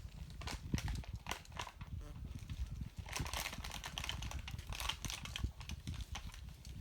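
Irregular clicks and knocks with rustling, denser from about halfway through, over a steady low rumble.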